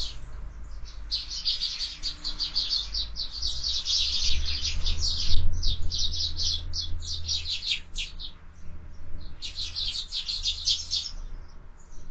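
Sparrows chirping at a feeder: fast, busy runs of short chirps from several birds, with a short lull near the start and another about two-thirds through. A steady low wind rumble sits underneath.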